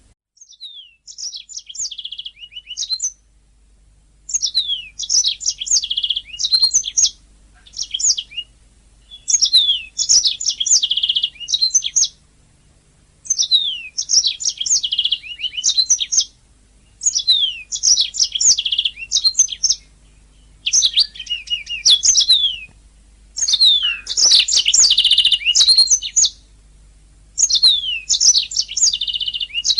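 Domestic canary singing: rapid trills and quick sweeping whistled notes in phrases of two to four seconds, each followed by a short pause.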